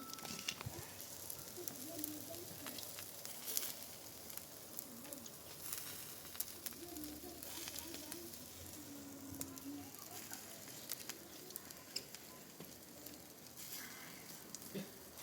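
Wood fire for baking thin flatbread, crackling and hissing steadily with scattered sharp crackles.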